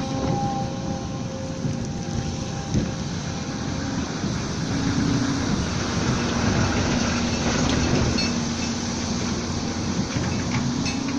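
Volvo excavator running: a steady, heavy diesel engine and machinery noise with a low hum, getting slightly louder around the middle.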